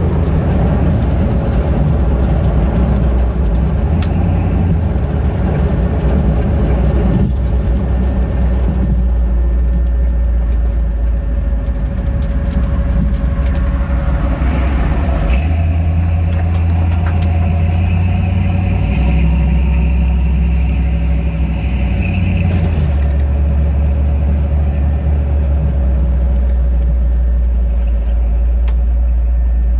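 1977 Ford Bronco's engine and exhaust heard from inside the cab while driving, a low drone that steps up and down in pitch several times as the truck speeds up and eases off.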